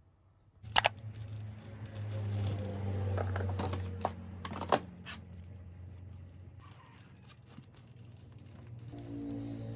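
Packaging being handled: crinkling and tearing with a few sharp clicks, then quieter rustling.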